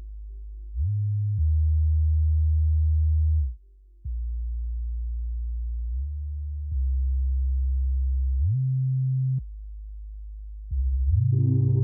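Deep sine-wave sub bass from FL Studio's 3x Osc synth on an 808 sub bass channel, playing a slow line of long held notes that change pitch every second or two, some gliding up into the next. Near the end other parts of the beat come in over it.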